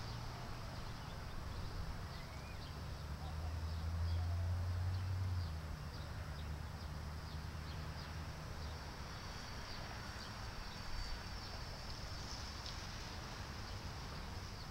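Outdoor street ambience: small birds giving many quick, short high chirps over a low steady rumble of traffic. The rumble swells a few seconds in and drops off sharply about five and a half seconds in.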